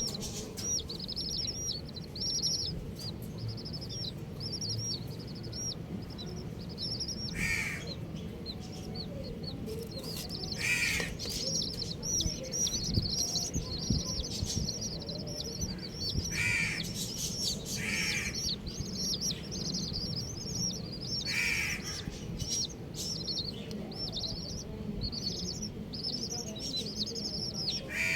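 A flock of baby chicks peeping continuously, a stream of short high peeps. About five louder, harsher calls stand out at intervals.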